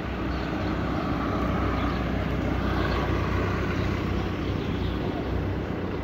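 Car engine running close by on a street, a steady low rumble that swells slightly over the first couple of seconds.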